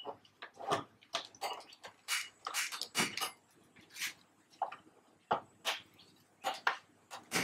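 Hand-held spark gas lighter clicking over and over to light the burners of a gas stove: about fifteen sharp clicks, irregularly spaced.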